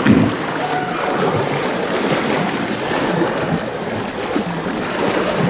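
Water swishing and splashing as elephants wade through a shallow river.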